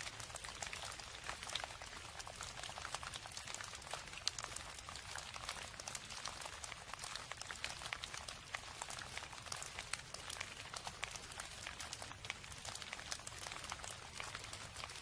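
Steady rain: a dense, even patter of small drops, with a steady low rumble underneath.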